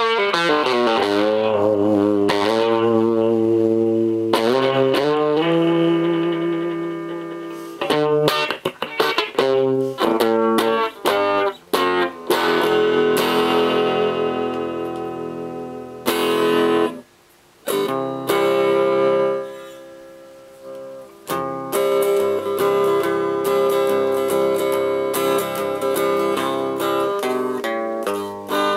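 Electric guitar played through a DIY MTB-1E tube amplifier built on 6EB8 tubes: ringing chords and sustained notes, with a run of short choppy stabs about eight to twelve seconds in and a brief gap near the middle.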